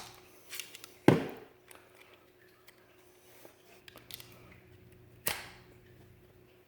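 Sharp metallic clicks and taps of screwdriver blades against the parts of a Kwikset knob lock while prying its cylinder loose: a loud click about a second in, another about five seconds in, and a few fainter ticks between.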